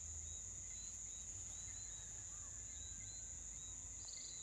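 Steady high-pitched drone of crickets or other night insects, with faint short chirps now and then and a low rumble underneath.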